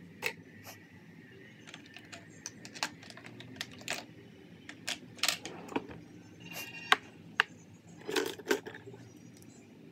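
Irregular light clicks and clacks of small hard makeup items, such as cases, caps and pencils, being picked up and set down on a hard surface, with the sharpest click about seven seconds in.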